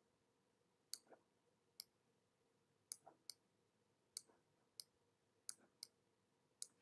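Faint, sharp clicks from a computer input device, about nine at irregular intervals, some in quick pairs.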